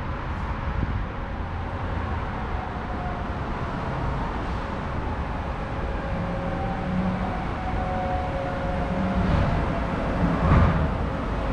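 EN78 electric multiple unit approaching along the track, its traction drive whining in several steady tones that drift slightly in pitch over a low rumble. A louder knock comes near the end.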